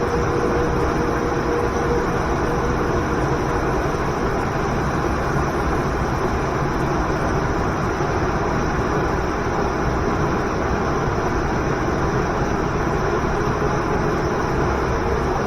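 Waterfall and river rushing: a steady, unbroken roar of falling water.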